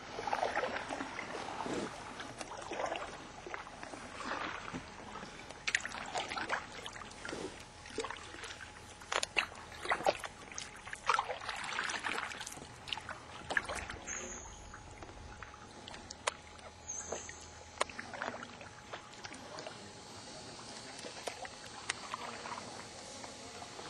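Canoe paddle dipping and splashing in calm water, a stroke every second or two, softer in the second half. Two brief high chirps sound near the middle.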